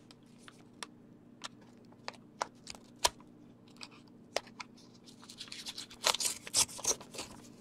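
Scissors cutting open a paper mailing envelope: a string of sharp, separate snips, then denser paper rustling and crinkling near the end as the envelope is handled.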